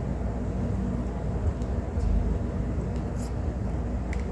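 Steady low background rumble with a swell about two seconds in, and a few faint light ticks in the second half.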